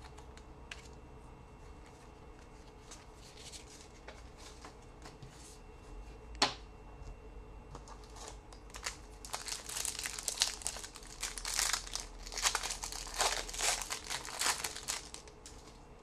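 Wrapper of a 2007 Topps Total football card pack crinkling and tearing as it is opened, faint at first and densest in the second half, with one sharp click about six and a half seconds in.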